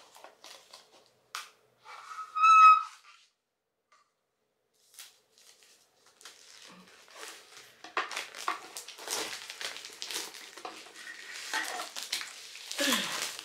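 Clear plastic packaging crinkling and rustling as items are handled and unwrapped, sparse at first and busier in the second half. A short, high, steady-pitched squeak comes about two and a half seconds in.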